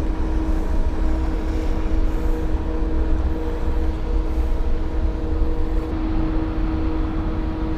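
A steady motor hum, one constant tone over a dense low rumble, with no change in pitch or level.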